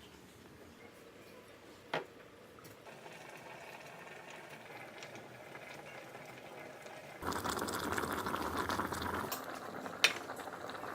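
Hot liquid bubbling in an electric kettle with food cooking in it. The bubbling is faint at first, then louder for about two seconds some seven seconds in. Two sharp clicks come about two seconds in and near the end.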